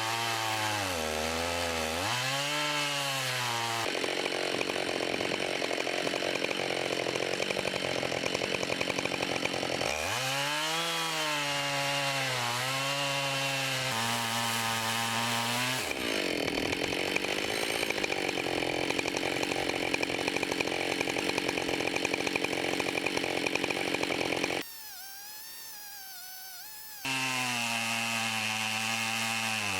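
Husqvarna 572 XP two-stroke chainsaw with a 24-inch bar, running in a Granberg edging mill and ripping lengthwise along a log. The engine pitch sags and climbs again several times as the chain loads up in the cut. About 25 seconds in the sound drops much quieter for a couple of seconds before the saw comes back at full revs.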